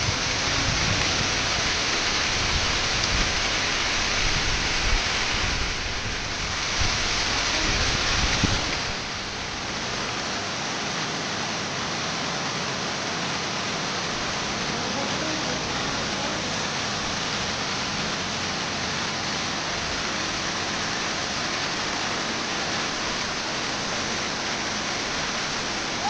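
Waterfall: falling water rushing steadily. A low rumble underneath drops away about nine seconds in, and the sound gets a little quieter from there.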